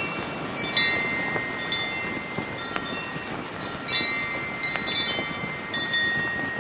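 Brass wind chimes ringing in heavy wind, struck in clusters of bright tones several times, each ringing on for a second or more, over a steady rush of wind and a flag flapping.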